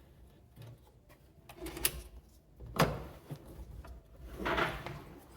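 Hands handling a top-load washing machine's parts: two sharp clicking knocks about two and three seconds in, a few faint clicks, and a short scraping rub near the end.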